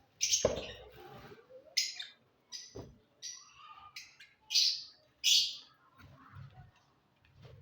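Lovebirds chirping: a string of short, shrill, high calls at irregular intervals, the two loudest about halfway through.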